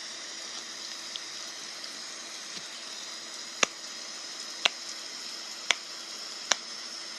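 Small handheld fidget toy being worked for its ASMR sound: four sharp clicks about a second apart, starting about three and a half seconds in, over a faint steady hiss.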